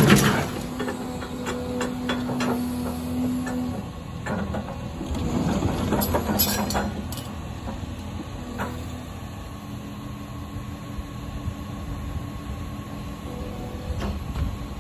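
Caterpillar excavator's diesel engine running steadily with hydraulic whine, as its demolition bucket works. A crash of dropped debris comes right at the start, then a few scattered clanks and knocks.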